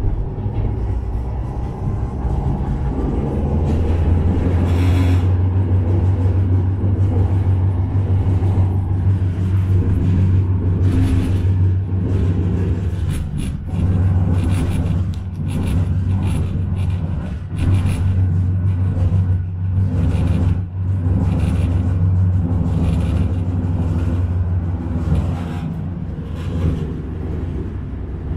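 Interior ride noise of a Cobra low-floor tram under way: a steady low rumble that builds over the first few seconds as the tram gets moving, with frequent clicks and rattles throughout and a few brief dips.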